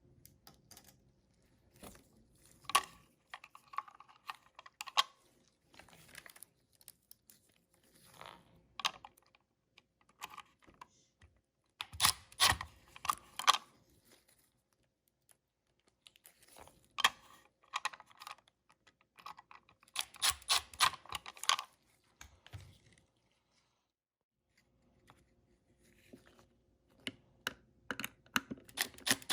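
Clusters of sharp clicks and light rattling from small plastic parts being handled and snapped together as replacement ice-bucket infrared sensors and their connectors are fitted, with short quiet gaps between the bursts.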